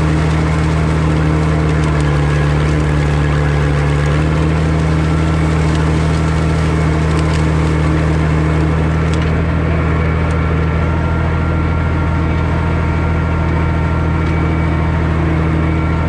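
Farmall 560 diesel tractor's six-cylinder engine running steadily under load while pulling a disk harrow through corn stalks.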